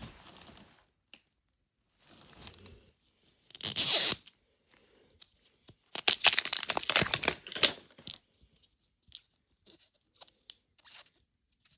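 Small plastic wrappers being torn open and crinkled by hand, in two main crackly bursts about three and a half and six seconds in, with fainter rustles and light clicks between and after.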